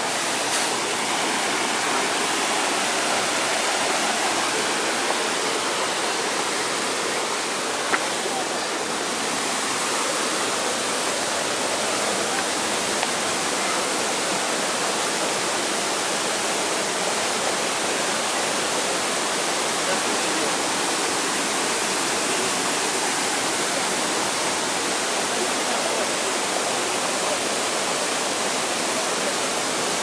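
Waterfall on a mountain stream, water cascading over boulders in a steady, unbroken rush.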